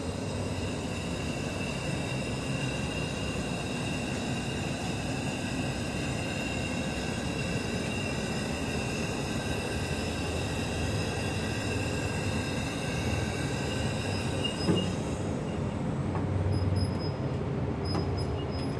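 Rotary two-post hydraulic vehicle lift lowering a pickup truck: a steady mechanical hiss with a high whine over it. The whine fades about fifteen seconds in, around a sharp knock as the lift comes down.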